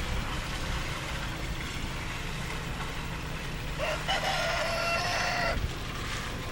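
A rooster crows once, about four seconds in, a single call lasting under two seconds, over steady background noise.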